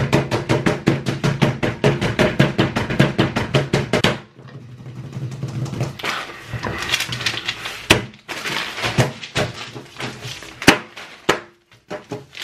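Knife chopping rapidly on a cutting board, about seven even strokes a second, stopping about four seconds in. Then scattered knocks and clatter.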